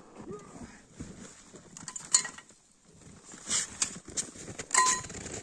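An axe splitting firewood: three sharp chopping strikes on logs, a bit over a second apart, with the last one ringing briefly.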